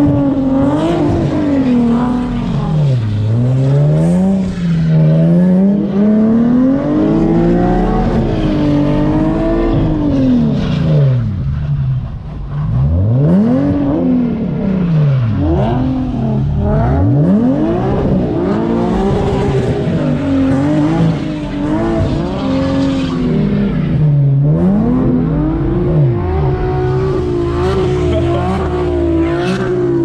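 Tuned Infiniti G37's 3.7-litre V6 revving hard, its pitch climbing and dropping again and again as the car is whipped around on snow.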